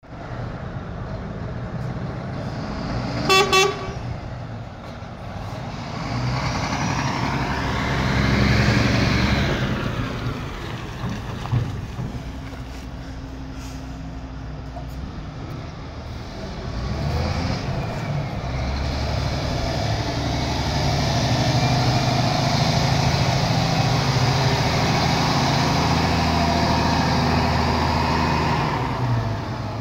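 2011 Scania P360 tipper's nine-litre five-cylinder diesel engine running as the truck drives, the revs rising as it pulls away about six seconds in and again from about seventeen seconds, running loudest under load near the end. A short horn toot sounds about three seconds in.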